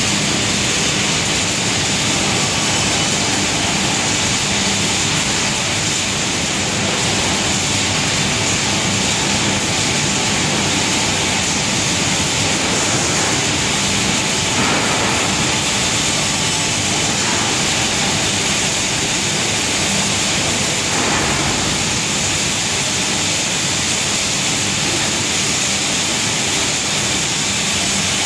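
Industrial dust-extraction fans running: a loud, steady, even rush of noise with a faint low hum under it.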